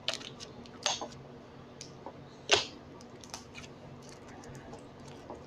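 Slime with dry pieces in it being stretched and worked by hand, giving scattered sharp pops and clicks, the loudest about two and a half seconds in.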